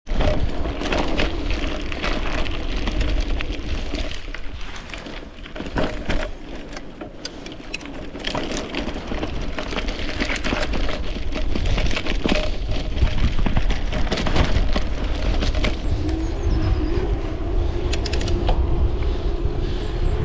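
Mountain bike being ridden along a paved path: steady tyre and drivetrain noise with scattered rattling clicks, and wind buffeting the microphone.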